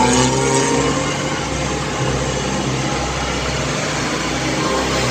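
Heavy diesel trucks' engines droning as they work up a steep mountain road, with a truck passing close at the start. The sound eases a little after about a second and then holds steady.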